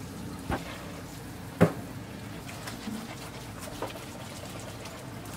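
Tap water running onto raw pig's trotters in a stainless-steel sink as gloved hands scrub them, with two sharp knocks, about half a second and a second and a half in, and a few lighter clicks later.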